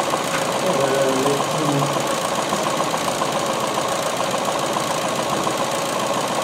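Ford C-Max 1.6 petrol four-cylinder engine idling roughly with a steady, fast pulse. It is misfiring on cylinders 2 and 3, which are getting no spark.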